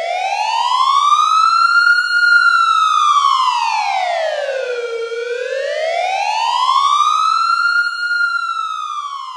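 Siren wail sound effect, its pitch sweeping slowly up and down in two long rises and falls, fading toward the end.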